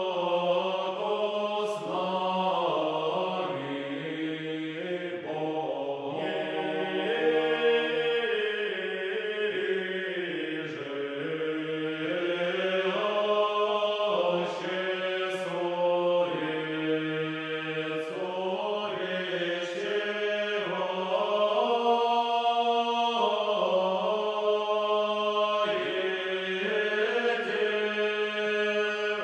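Background music of slow, chant-like voices holding long notes over a steady low note.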